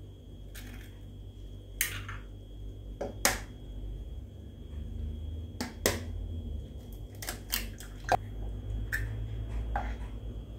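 Eggs tapped and cracked open on the rim of a plastic blender jug: scattered sharp taps and shell cracks, mixed with small knocks of kitchen containers being picked up and set down on the counter.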